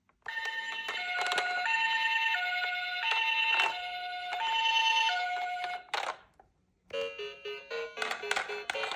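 Battery-powered toy ambulance's electronic two-tone siren, alternating between a high and a low note about every 0.7 s, with a few plastic clicks. It cuts off near the middle, and after a brief pause a different electronic toy jingle of quick notes starts.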